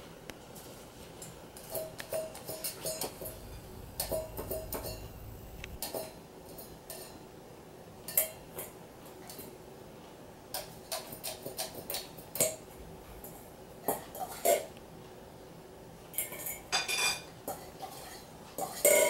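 A puppy's metal food plate being nudged and knocked about, clinking and clattering in irregular bursts with short ringing, the loudest knocks coming near the end.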